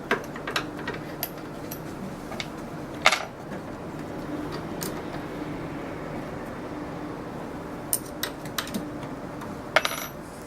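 Scattered sharp metallic clinks and taps of small tools and parts being handled at a small benchtop metal lathe, the loudest about three seconds in and a quick pair near the end, over a faint steady hum.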